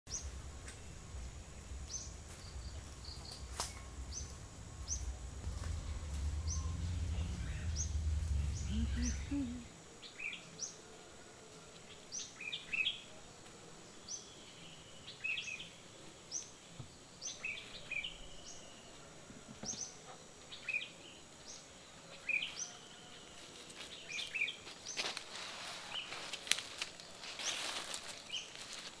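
Wild birds chirping: short high calls repeated about once a second, over a low rumble that cuts off about a third of the way in. Near the end, footsteps rustling through dry leaf litter.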